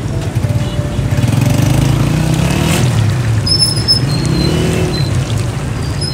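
Street noise with a motor vehicle engine rumbling, over the hiss of a large wok of oil deep-frying a katlama flatbread. A few short high squeaks come midway.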